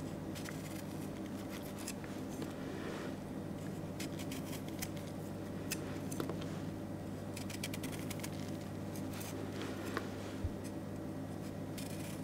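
Japanese kitchen knife cutting notches into a small block of raw carrot held in the hand: clusters of short, crisp cutting and scraping clicks every second or two, over a steady low hum.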